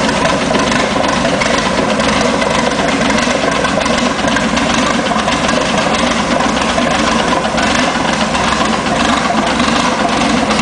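Hino K13C turbocharged inline-six engine, converted from diesel to run on CNG with spark ignition, running at a steady speed with no change in pitch or level.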